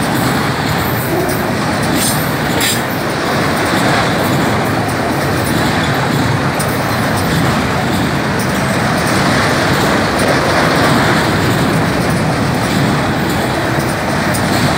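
Freight train of enclosed autorack cars rolling past at close range: a steady rumble and wheel noise on the rails, with a few sharp clicks about two seconds in.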